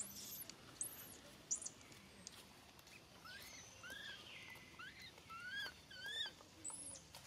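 Baby long-tailed macaque squealing: a run of short, high-pitched cries that rise and fall, about a dozen in a few seconds. It is a hungry infant crying for its mother.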